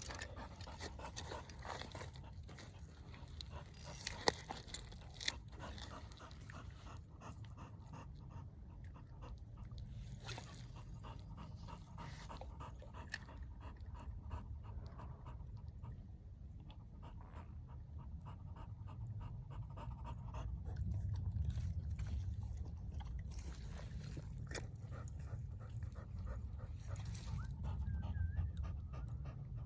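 Dog panting steadily, with a couple of sharp clicks about four and five seconds in.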